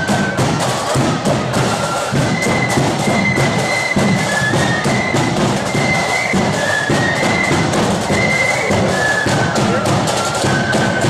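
Marching flute band playing a tune on flutes over a steady beat of drums.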